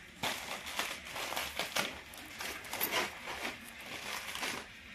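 Small fish being cleaned on a boti, an upright curved kitchen blade fixed in a wooden block: a run of quick, irregular crinkly scraping strokes as the fish is drawn against the blade to scrape it, stopping just before the end.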